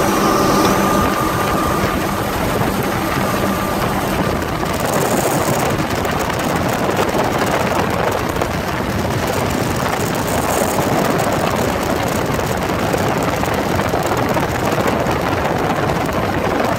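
Fountain 38 Sportfish Cruiser running fast on its outboard engines. It makes a loud, steady rush of wind and water noise, and the engines' pitched drone is clear only in the first couple of seconds before the rush covers it.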